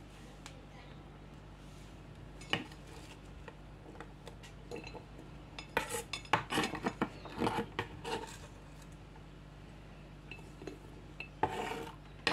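Kitchen knife tapping and scraping on a plastic cutting board and clinking against a ceramic plate as sliced onion pieces are pushed across. There is one sharp knock early, a quick run of taps and scrapes in the middle, and another short run near the end.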